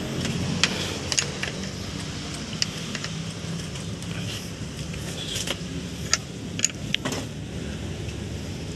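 Scattered sharp metallic clicks and clinks, about seven over several seconds, from small hand tools and parts being handled while working on the motorcycle's wiring. A steady low rumble runs underneath.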